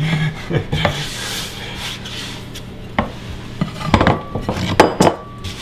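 Wooden rolling pin rolling out stiff egg-noodle dough on a board: a rubbing sound with several sharp knocks, the loudest about three, four and five seconds in.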